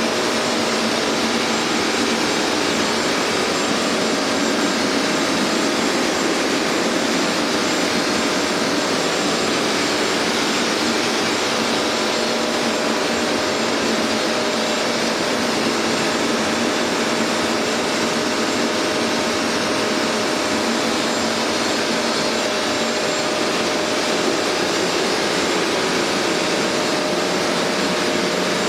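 Hoover MaxExtract carpet cleaner running steadily, its suction motor giving a loud, even whoosh with a constant whine.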